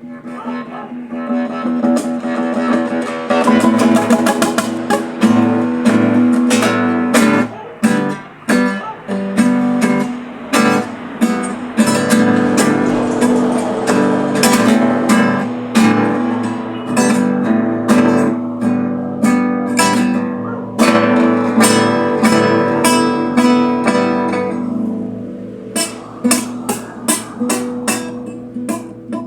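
Acoustic guitar playing, strummed and plucked chords with quick, sharp strokes.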